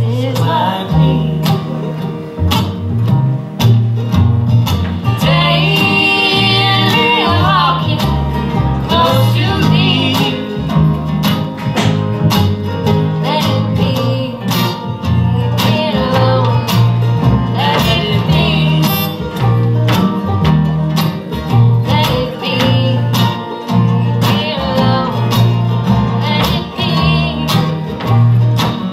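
Acoustic bluegrass band playing live: strummed and picked acoustic guitars and banjo over a walking upright bass line.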